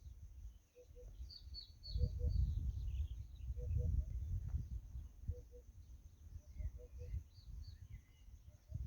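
Birds singing outdoors: a low two-note call repeats about every second and a half, with scattered high chirps. Low rumbling gusts of wind buffet the microphone and are the loudest sound.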